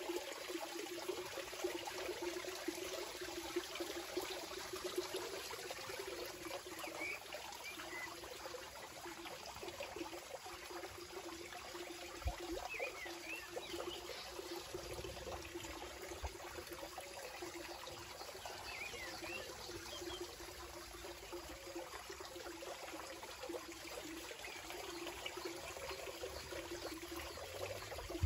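Steady trickling, water-like ambience with a fine crackling texture, and a few faint, short bird-like chirps now and then.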